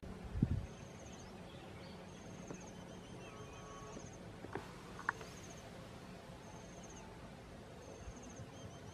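Insects chirping in short high trills repeated about once a second, with a low thump about half a second in.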